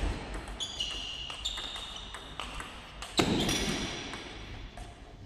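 Table tennis ball being struck by rubber-faced bats and bouncing on the table during a rally: a series of sharp clicks, with two louder hits about three seconds apart, echoing in a large hall.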